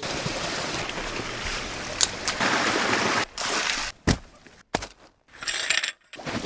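Rushing water of a mountain stream, in several short clips cut together, so it stops and starts abruptly in the second half, with a few sharp knocks.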